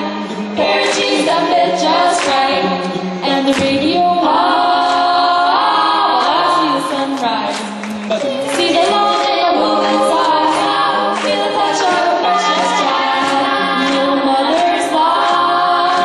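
Mixed a cappella group singing through handheld microphones in close harmony, with a steadily pulsing sung bass line underneath and short sharp vocal hits.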